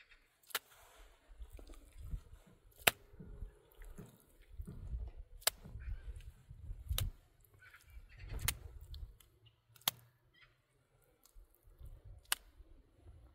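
Handfuls of wet mud being slapped and pressed by hand onto a cinder-block wall, low soft thumps with about six sharp clicks scattered through.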